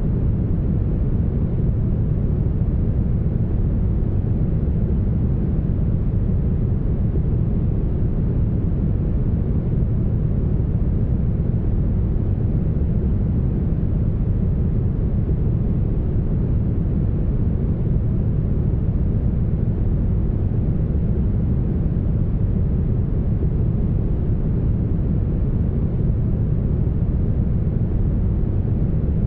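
Smoothed brown noise: a steady, deep, even rumble with most of its weight in the low end and almost nothing in the highs.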